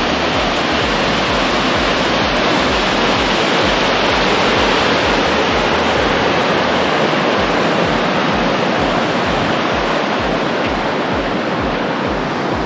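Muddy runoff water from a fresh landslide rushing down the slope and across the road, a loud, steady rush.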